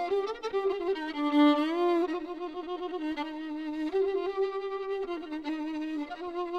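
Background music: a single bowed string instrument, violin-like, playing a slow melody of held notes with slides between them.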